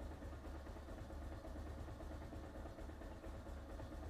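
Bajaj Pulsar 220F's single-cylinder engine idling steadily while it warms up after a cold start.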